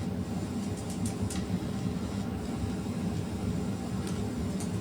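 Steady low rumble with a faint hiss above it and a few faint clicks.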